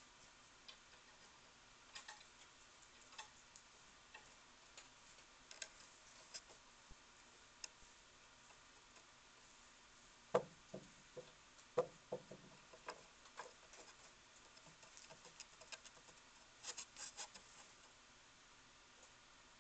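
Raccoon clambering up a wooden deck post and onto the railing, its claws scratching and tapping on the wood. Faint, scattered clicks over near silence, with a cluster of louder knocks about ten seconds in and a short flurry of taps toward the end.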